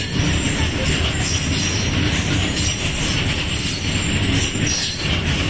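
Empty BCNHL bogie freight wagons rolling past on the rails, a steady rumble of wheels and wagon bodies.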